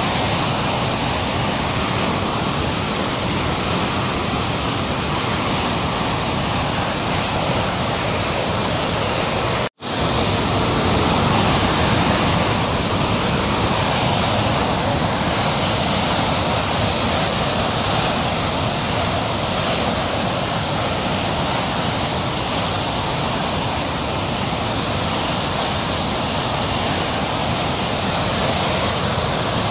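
Floodwater rushing through a dam's opened spillway shutters: a loud, steady rush of churning white water, broken once by a split-second gap about ten seconds in.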